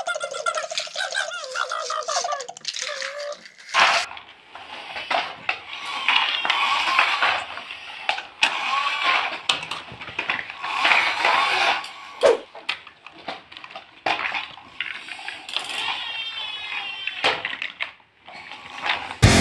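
A small child babbling and squealing, with plastic toy blocks and a toy tractor knocking and rattling on the floor.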